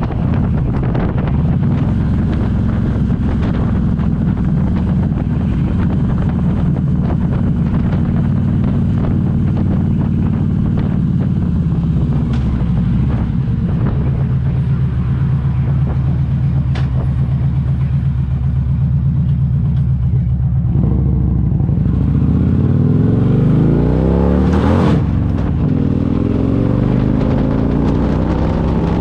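Car engine and drivetrain running steadily, a noise the owner puts down to the transmission. About three-quarters of the way through, the pitch shifts and slides up and down for a few seconds, with a brief rush of noise near the end.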